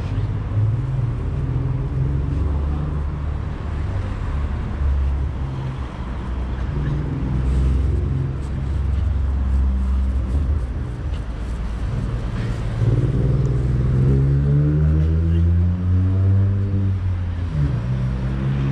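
Motor vehicle engine running close by. It rises in pitch as it speeds up about two-thirds of the way through, then drops back sharply near the end.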